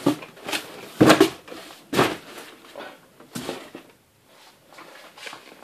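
Cardboard boxes being handled: a boxed toy set knocking and scraping against its cardboard shipping carton as it is lifted out. A string of short knocks, the loudest about a second in and another about two seconds in, with fainter ones later.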